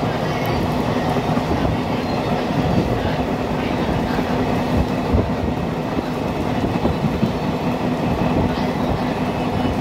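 Train running along the line, heard from inside a coach at the window: a steady rumble of wheels on the track with a low hum.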